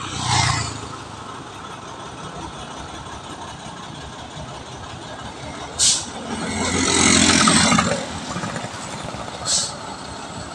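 Heavy truck idling, with bursts of air hissing from its air brakes: one at the start, a short one about six seconds in followed by a longer one, and another short one near the end.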